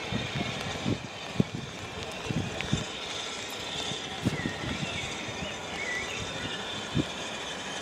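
BR Standard Class 4MT 2-6-0 steam locomotive drifting slowly toward the platform, giving irregular low knocks and clanks over the track, with a steady hiss. Birds chirp a few times past the middle.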